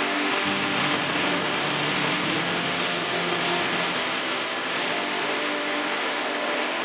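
A machine running steadily, with an even hiss and a faint hum that stays level throughout.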